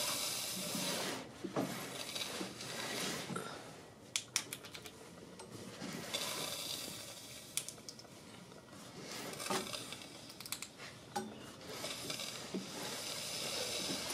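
Harley-Davidson Milwaukee-Eight engine being turned over by hand with the new S&S 475 cam and cam chain fitted, to check that the chain doesn't bind. A hiss comes and goes in several waves, with scattered light metallic clicks.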